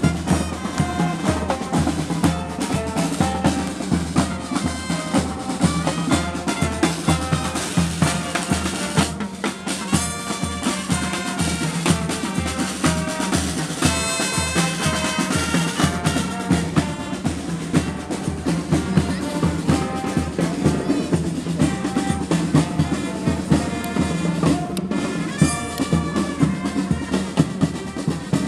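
Marching brass band playing a tune, with bass drum and snare drum keeping a steady beat under the brass.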